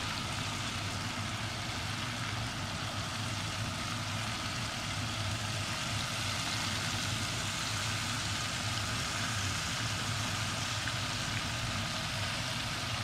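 Hot oil sizzling steadily in a saucepan as floured chicken pieces deep-fry, with a steady low hum underneath.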